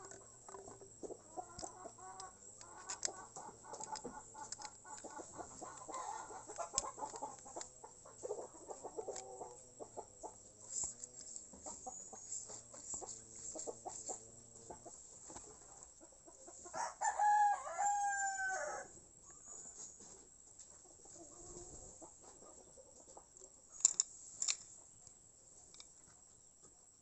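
A rooster crowing once, about two seconds long, past the middle. Near the end come two short, sharp clicks.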